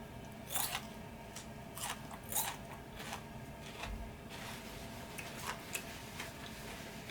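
A person biting and chewing food close to the microphone: a few loud, crisp crunches in the first two and a half seconds, then softer, wetter chewing.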